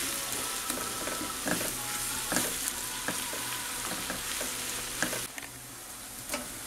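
Diced plantain (banana da terra) and onion sizzling as they fry in butter in a nonstick frying pan, with a silicone spatula stirring and scraping the pan in repeated strokes. The stirring stops and the sizzle quietens about five seconds in.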